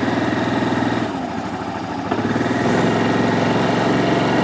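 Yamaha Grizzly 700 ATV's single-cylinder engine running at low speed. It eases off about a second in, a light click sounds about two seconds in, and it picks up again a little under three seconds in.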